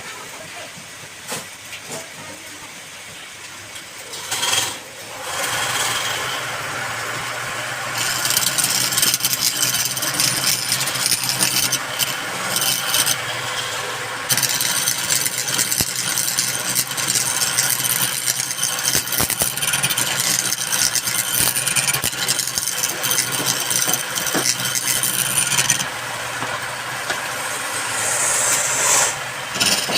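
A woodworking power tool's motor comes up a few seconds in. From about eight seconds it cuts into wood with a loud, rough rasp, easing off briefly a few times.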